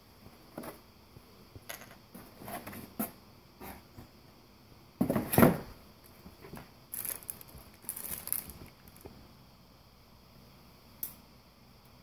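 Unboxing handling noises: scattered rustles, light clicks and scrapes from a moulded packaging insert and small plastic parts, with one louder knock about five seconds in and a sharp click near eleven seconds.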